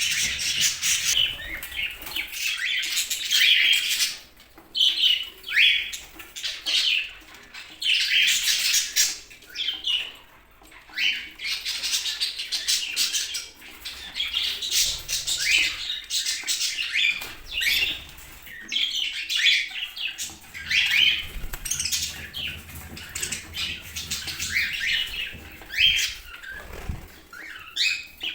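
Pet budgerigars chattering and chirping in rapid runs of short calls, with brief lulls between runs.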